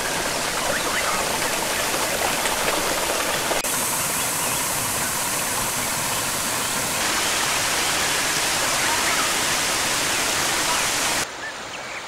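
Water cascading over mossy rock in small waterfalls: a steady rushing splash that shifts slightly in tone twice and drops in level near the end.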